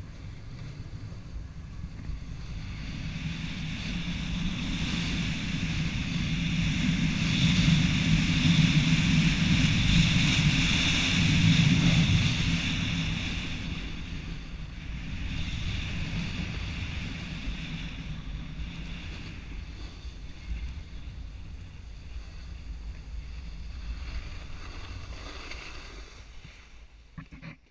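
Snowboard sliding and carving on groomed snow: a steady rushing hiss with wind on the microphone. It swells to its loudest about eight to twelve seconds in, eases off, and fades out near the end.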